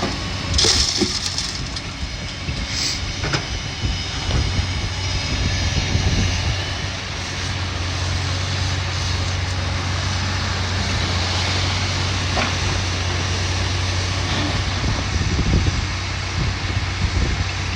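Heavy diesel demolition machine's engine running steadily, with a few scattered knocks.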